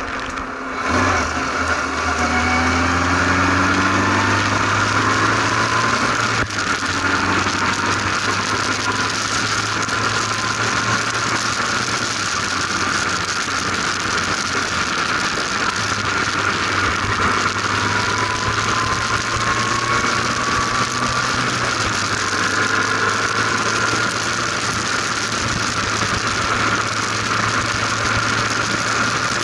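Formula RP1 single-seater race car at speed on track: its engine runs hard, and the pitch climbs in several slow sweeps as it accelerates. A steady rush of wind and road noise from the open cockpit runs under it.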